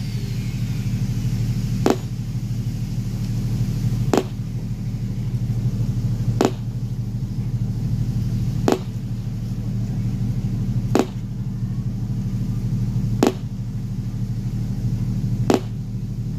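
A steady low hum, with a sharp click about every two and a quarter seconds.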